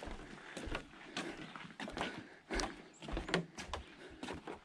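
Footsteps of people walking along a path: short, sharp footfalls a little more than once a second, uneven in spacing.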